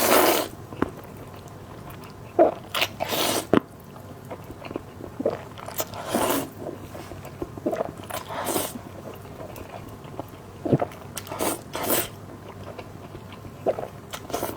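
Close-miked mouth sounds of a person eating spicy fire-chicken noodles: short bursts of biting and chewing every second or two.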